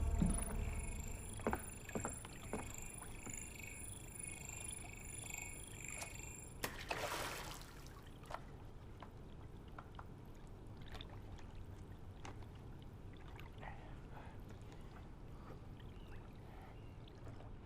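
Quiet water lapping and sloshing with scattered small knocks and clatters. A faint high sustained tone stops about six and a half seconds in, followed by a brief rushing whoosh.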